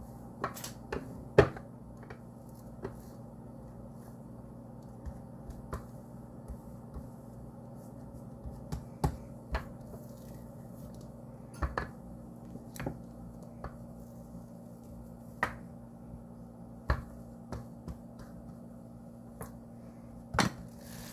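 Stainless steel rolling pin rolling out dough on a wooden cutting board, with scattered sharp clicks and knocks of the pin against the board, the loudest about a second in, over a steady low hum.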